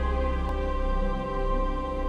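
Background music: slow, sustained chords with steady held notes.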